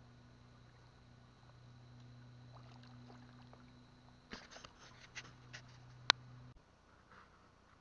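A small motor's steady low hum that cuts off suddenly about six and a half seconds in. Light clicks and knocks start about four seconds in, with one sharp, loud click just after six seconds.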